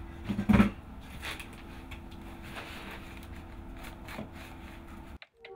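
Sheets of paper being handled and rustling over a steady low room hum, with one louder burst about half a second in. Near the end the sound cuts off and a sustained ringing tone begins.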